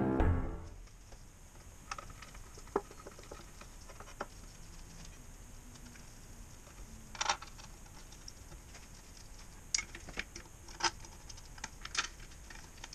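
Scattered light clicks and taps of gloved hands and small parts handled on a bare Isuzu 4BD2T diesel engine block, a few seconds apart.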